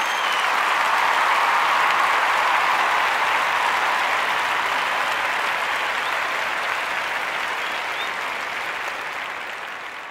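Crowd applauding. It swells over the first second or two, then slowly fades away near the end.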